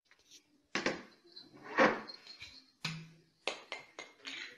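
Quiet scattered knocks and handling noises of a glass wine bottle being picked up off a table, with a somewhat louder knock about two seconds in.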